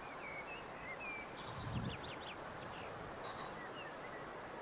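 Faint chirps and short whistles of small birds over a steady outdoor hiss, with a soft low thump about two seconds in.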